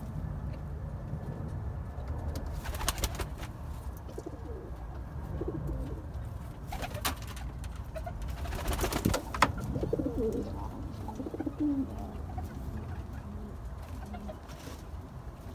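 Domestic pigeons cooing in their nest boxes, low repeated coos. A few short knocks and rustles break in, loudest about three seconds in and again around nine seconds.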